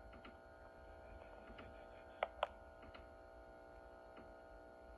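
Low steady electrical hum with two sharp clicks a quarter second apart, a little over two seconds in.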